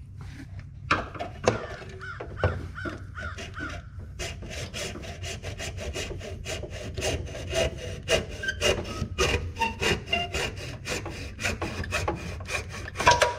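A small hacksaw cutting through the white plastic threaded fitting of a through-transom livewell pump. It begins with a few slower strokes, each giving a short squeak. Then comes steady, fast back-and-forth sawing, which stops near the end.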